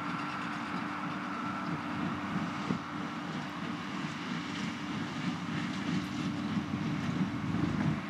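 New Holland tractor running steadily under load as it pulls a New Holland small square baler picking up hay, with the baler's mechanical clatter and a few sharp knocks.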